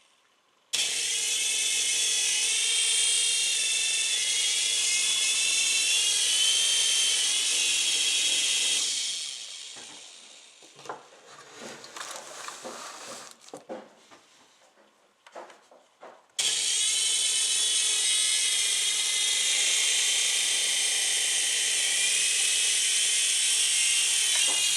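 A small electric motor whirring in two long steady runs that start abruptly, with clicks and handling noises in the gap between them.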